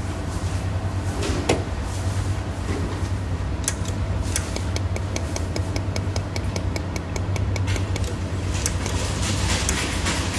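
Jewelry welding machine firing a rapid series of sharp clicks, about four or five a second, over a steady low hum. The clicks start a few seconds in and thin out to scattered clicks near the end.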